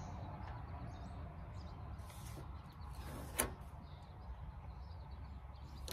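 Soft rustling from blue painter's tape being handled and pressed onto the truck's fender, over a steady low background rumble, with one sharp click about three and a half seconds in.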